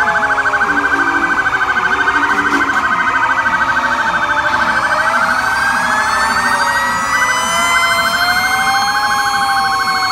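Several fire truck and police car sirens sounding at once: a fast, rapidly pulsing electronic warble over slower wails that rise and fall in pitch.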